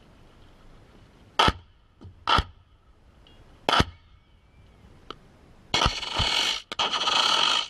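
Munition impacts around a target tank during a live air-to-ground strike. Four separate sharp cracks come over the first five seconds, then a dense, loud run of hits starts about six seconds in and lasts nearly two seconds.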